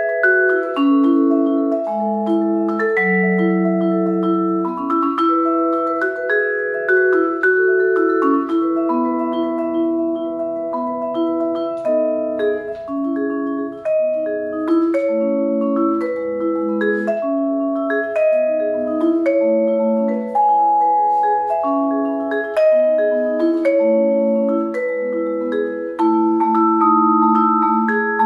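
Solo vibraphone played with four mallets: a steady flow of struck notes and chords, the metal bars ringing on and overlapping.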